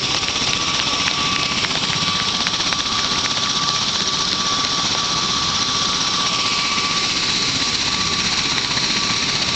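Bell Boeing V-22 Osprey tiltrotor running on the ground with its proprotors turning, its twin turboshaft engines giving a steady whine over a dense rushing rotor noise.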